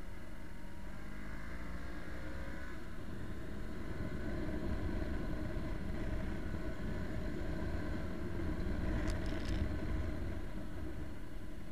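Motorcycle riding at speed at night, its engine note falling over the first few seconds, then a rushing wind and road noise that grows louder. A few sharp clicks about nine seconds in.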